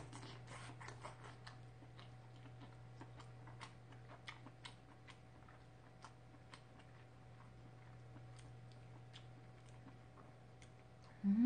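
Close-miked chewing of a mouthful of braised short rib: small wet mouth clicks, many in the first few seconds and sparser later, over a steady low hum. A short hummed voice sounds near the end.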